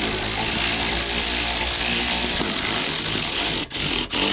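Power drill with a 7 mm socket running steadily, driving in a headlight mounting screw. Near the end it stops and starts in short bursts as the screw seats.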